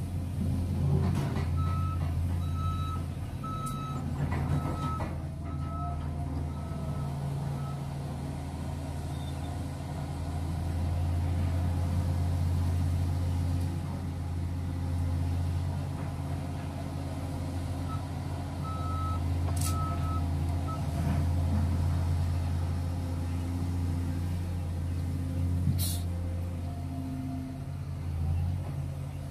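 Caterpillar 345GC hydraulic excavator's diesel engine running, swelling and easing twice as it works the bucket and swings. A backup alarm beeps about once a second in several runs, and a couple of sharp knocks come in the second half.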